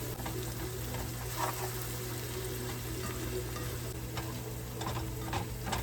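Pork chorizo and pico de gallo sizzling in a frying pan over medium heat, with a few short clicks from a utensil working the pan.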